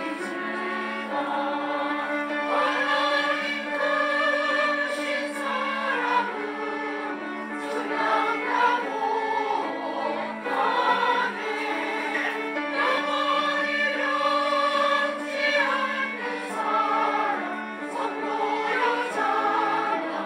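Church choir singing a hymn, holding sustained notes in several parts.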